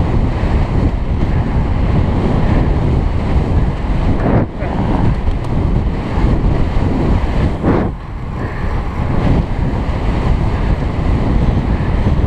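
Wind buffeting a helmet-mounted camera's microphone as the bicycle rides at race speed: a loud, steady low rush that dips briefly twice.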